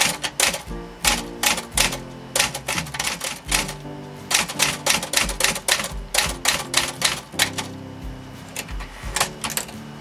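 Olivetti Underwood 21 manual typewriter being typed on: a quick run of sharp key strikes, easing off briefly around eight seconds in, over background music.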